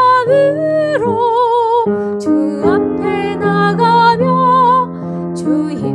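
A woman singing a Korean worship song in long held notes with a wavering vibrato, over steady accompaniment chords that change about once a second.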